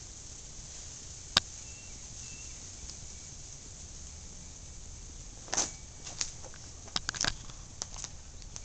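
Steady outdoor background hiss, with one sharp click a little over a second in and a cluster of short clicks and rustles in the second half.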